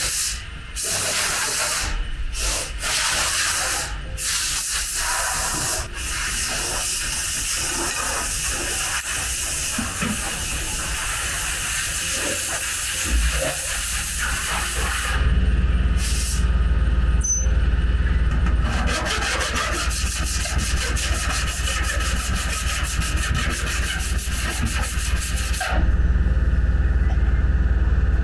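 Power sander working on a van's body panel, stopping and starting several times in the first few seconds and then running steadily. A low rumble joins it from about halfway through.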